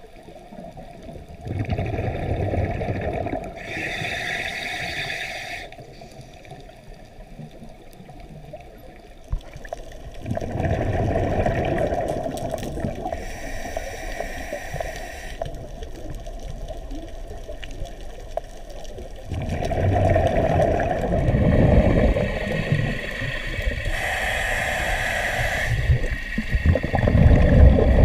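Scuba diver breathing through a regulator underwater: loud bubbling exhalations, each followed by the hiss of an inhalation, repeating every eight to nine seconds.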